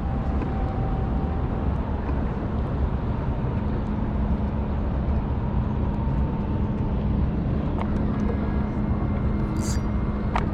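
Boat motor running steadily with a low hum, under the rush of wind and water, as a walleye is reeled in.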